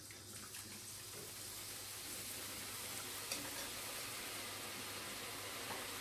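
Drops of chickpea-flour (besan) batter frying as boondi in hot vegetable oil. A steady sizzle builds over the first couple of seconds and then holds.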